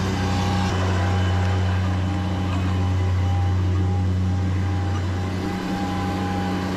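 A machine engine running steadily at a constant speed, a low drone with an even level.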